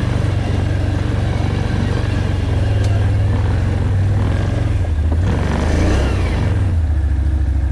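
ATV engine running steadily at low trail speed, with a strong low drone that dips and swells slightly as the throttle changes.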